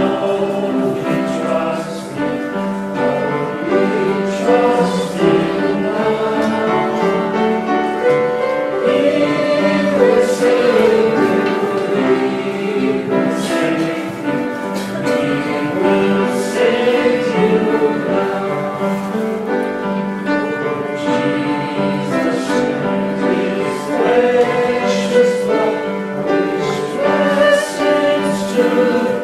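Church congregation singing a hymn together, with sustained notes.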